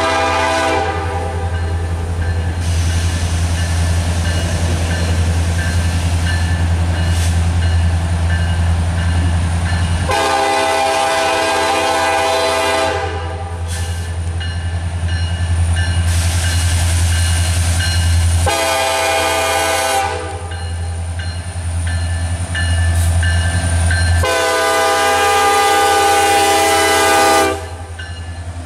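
Horn of the lead locomotive, an EMD SD70M-2, sounding the grade-crossing signal: the end of a long blast, then a long, a short and a final long blast. Under it runs the steady low rumble of the diesel locomotives working past.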